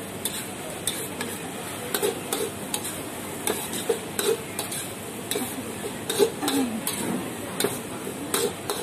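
Metal ladle scraping and clanking against a steel wok as fried noodles are tossed. The clanks are irregular, about one or two a second, over a steady sizzle of frying.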